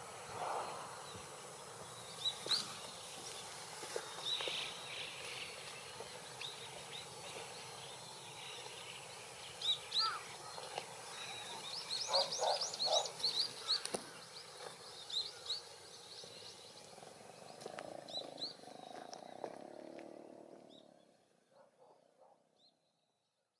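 Outdoor dusk ambience: small birds chirping in short, quick notes over a steady distant background hum, with a lower call repeated in a short series of three or four notes about halfway through. It all fades away about two seconds before the end.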